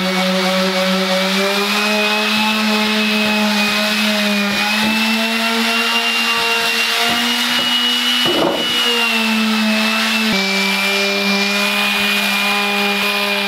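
Electric palm sander running across a wooden tabletop: a steady motor whine that drops slightly in pitch about ten seconds in.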